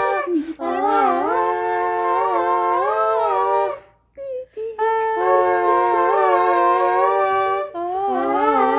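Long, wavering, howl-like vocal tones in the song, held for several seconds each, with a short break about halfway through.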